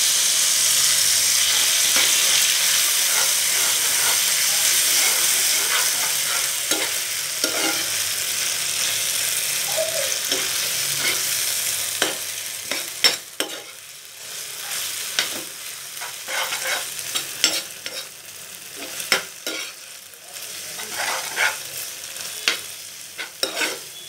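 Boiled Maggi instant noodles and fried potato cubes sizzling in hot oil in a frying pan while a metal spatula stirs them. The sizzle is loud for about the first half, then dies down, leaving the spatula's scrapes and clicks against the pan.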